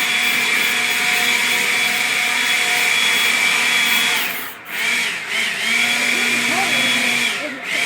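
A small motor running at a steady high speed, cutting out sharply twice and spinning back up with a rising pitch each time.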